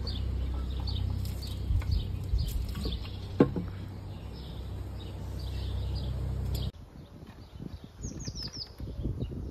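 Small birds chirping and twittering over a steady low rumble. One sharp knock comes about three and a half seconds in. The rumble drops away after the cut, and a quick falling bird trill follows.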